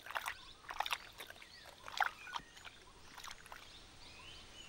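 Asiatic lions lapping water from a trough: a string of short wet slaps and clicks, irregular and thinning out after about three seconds, with a bird chirping faintly near the end.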